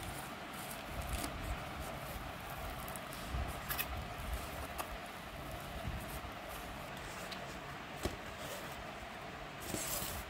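Cardboard packaging being opened and handled by hand: the flaps of a taped shipping box pulled open and a phone's retail box lifted out, giving scattered rustles, scrapes and small knocks, with a longer rustle near the end. A steady background hum runs underneath.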